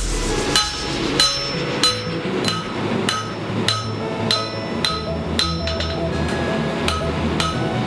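Hand hammer striking a red-hot railroad spike on an anvil in a steady rhythm, about three blows every two seconds. Each blow has a short metallic ring.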